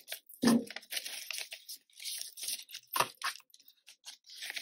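Banknotes crinkling and rustling as they are handled and slid into a clear plastic binder pocket. There is a soft knock about half a second in and a sharp click near three seconds.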